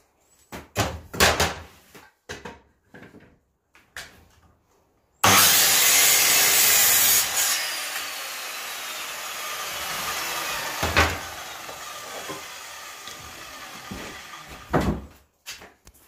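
Sliding mitre saw cutting an offcut from a length of pine. For the first five seconds the timber knocks as it is positioned on the saw table. About five seconds in, the saw starts suddenly and cuts loudly through the wood for about two seconds, then the blade spins down with a falling whine over several seconds, with a knock or two as the wood is moved.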